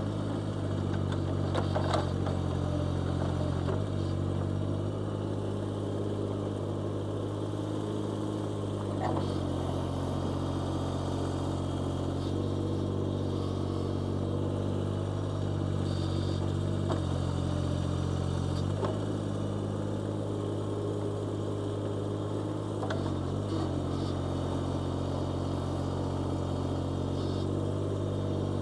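Digger (excavator) engine running steadily as it digs a trench, its note shifting slightly a few times as the load changes, with a few brief knocks.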